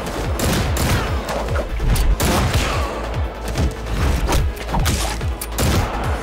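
Gunfire from several guns, many shots in quick succession, over a driving action music score.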